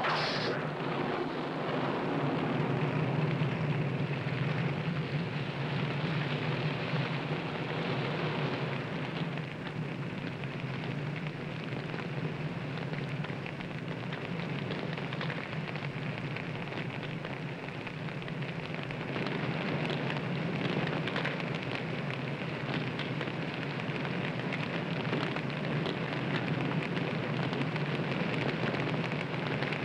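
Forest fire burning: a steady rush of flames with dense fine crackling.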